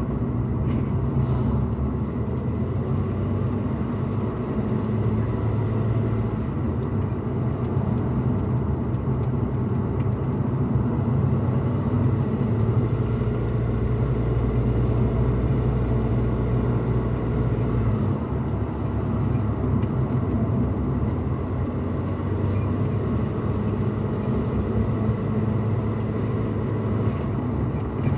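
Pickup truck cabin noise while driving: steady low engine and road rumble, with the engine note shifting slightly in pitch now and then.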